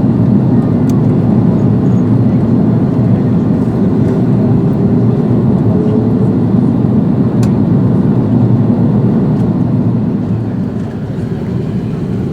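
Airbus A330-200 cabin noise in flight: the steady, deep rush of the jet engines and airflow past the fuselage, easing slightly in level near the end.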